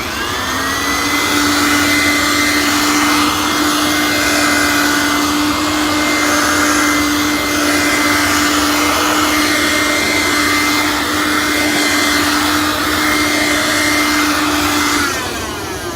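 Hoover Helpmate S1057-700 canister vacuum cleaner switched on, its motor whining up to speed within about a second and running steadily, then switched off near the end and winding down with a falling whine.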